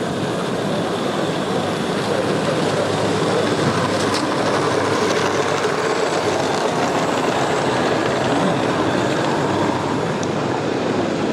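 Garden-scale model train running along its track and passing close by, its wheels rumbling on the rails; the sound swells about two seconds in and eases a little near the end.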